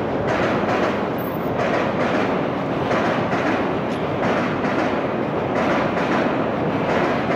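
Chuo Line electric commuter train running across a steel girder railway bridge: a steady rumble of wheels on rails with repeated clacks.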